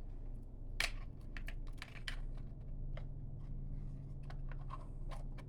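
Plastic bike-chain fidget (infinity chain) being fiddled with in the hands: irregular small clicks and clacks of the links, over a low steady hum.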